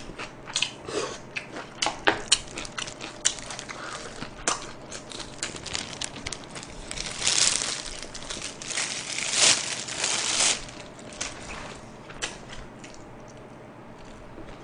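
Close-miked crunching and chewing of sauced fried chicken (BHC Hot Soy Barbecue), with many sharp clicks and two longer crinkling swells about seven and ten seconds in.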